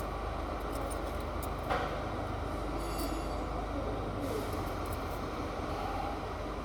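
Isuzu 4BD1 turbo diesel engine running steadily, with a single short knock about two seconds in.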